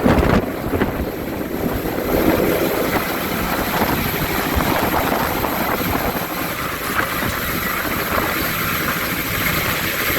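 Helicopter's rotor and engine running steadily, a constant dense rush of noise with a fast low beat.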